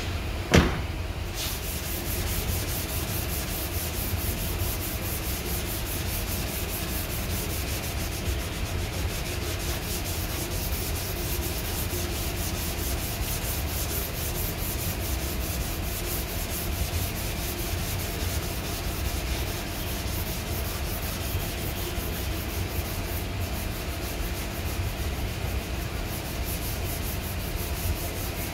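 Sanding of body putty on a car's rear quarter panel: a steady rubbing and scraping, with a single sharp knock about half a second in.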